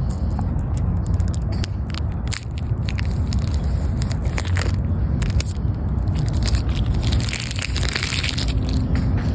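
Plastic packaging crinkling and crackling in a steady stream of irregular clicks as wrapping is pulled off new golf clubs and head covers. A steady low rumble from handling on the microphone runs underneath.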